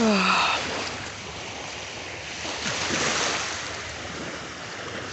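Small waves washing onto a beach, swelling about three seconds in. A short falling vocal sound, the loudest thing, comes right at the start.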